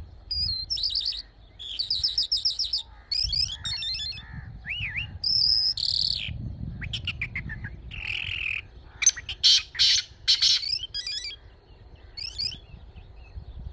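A songbird singing a long, varied song of quick whistled phrases, rapid trills and buzzy notes, with short pauses between phrases. The loudest phrases come about two-thirds of the way through, over a low background rumble.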